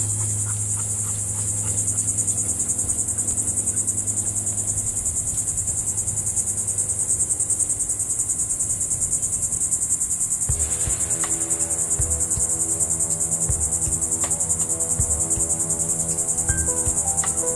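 Loud, steady high-pitched insect chorus, a rapid pulsing trill. About ten seconds in, a low steady hum joins it underneath.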